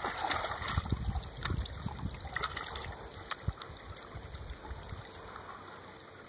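Water sloshing and trickling around a Doberman wading in the shallows against a rocky bank, with a few sharp clicks midway, growing quieter toward the end.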